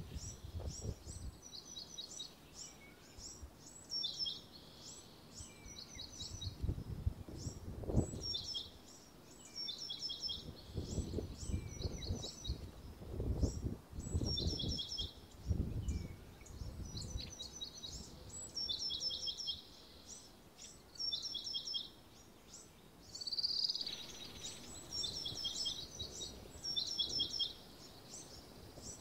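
Several small birds calling over and over in short, quick phrases of high notes, with irregular gusts of wind rumbling on the microphone underneath.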